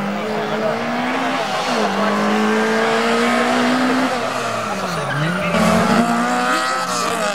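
Peugeot 205 rally car's four-cylinder engine revving hard up through the gears, dropping sharply about five seconds in as it brakes and downshifts for the hairpin, then revving hard again, with tyre squeal.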